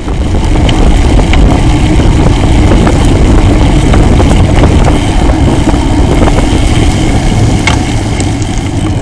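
Wind and road rumble on a rear-facing bicycle camera's microphone while riding: a loud, steady, low rush with a few light ticks.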